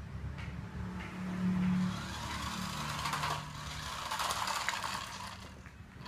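Small electric motor and plastic gearbox of a toy remote-control car whirring as it drives over a concrete floor, swelling briefly about a second and a half in.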